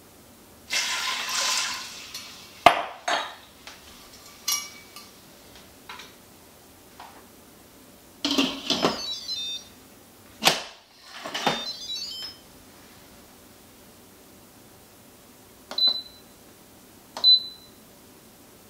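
Water poured from a measuring cup into the Instant Pot's inner pot, followed by a sharp clink as the cup is set down. The stainless lid then clatters and scrapes as it is fitted and twisted shut, and near the end the control panel gives two short high beeps as its buttons are pressed.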